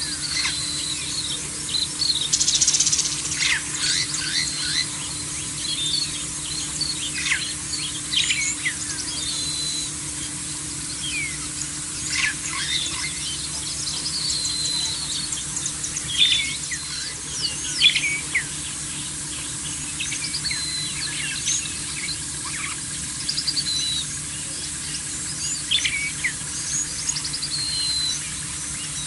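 Wild birds chirping, with many short, sharp calls overlapping throughout over a steady hiss.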